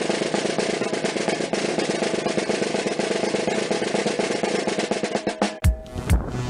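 Music: a rapid snare-drum roll for about five and a half seconds, then an electronic beat with heavy bass-drum kicks comes in.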